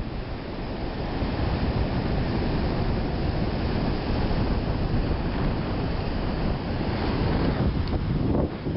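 Small ocean waves washing up and running back over the sand, with wind buffeting the microphone in a steady low rumble.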